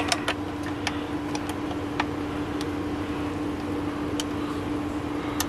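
A few scattered sharp clicks of switches and connectors being handled, over a steady electrical hum.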